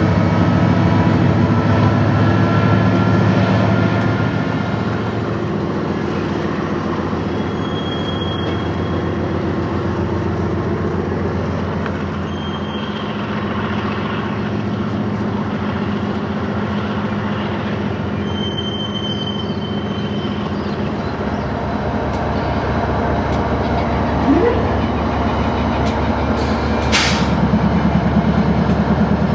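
Slow-moving freight train of loaded flatcars rolling behind a GE ES44 diesel locomotive, its engine running steadily under the rumble of the wheels. A few brief high wheel squeals come through, with a short, louder screech near the end.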